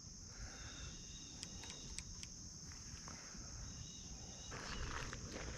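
Steady high-pitched chorus of insects, such as crickets, over a faint low rumble, with a few faint clicks.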